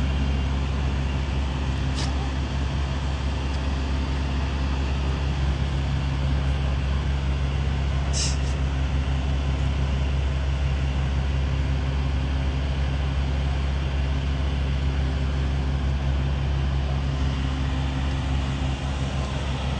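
Steady low engine and road rumble heard from inside a vehicle, with a brief high squeak about eight seconds in.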